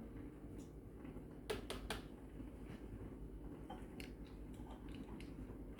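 Light clicks and taps of kitchen items being handled: three sharp clicks close together about one and a half seconds in, then a few softer ticks later on, over a low steady hum.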